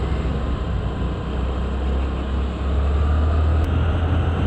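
Honda Dio scooter on the move: a steady low rumble of engine and wind on the handlebar microphone, with road noise. A faint whine rises slowly in pitch from about three seconds in.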